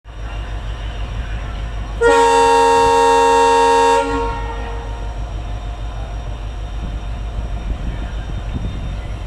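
EMD diesel locomotive running with a steady low engine drone. Its multi-tone horn sounds one blast of about two seconds, beginning about two seconds in.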